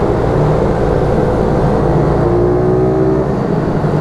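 YCF 88 cc pit bike's small single-cylinder four-stroke engine running under way, heard from on board with a rush of noise, its note climbing a little about two seconds in as it accelerates.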